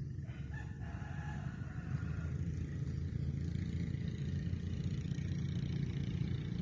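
A rooster crowing, one crow of about two seconds near the start, over a steady low rumble.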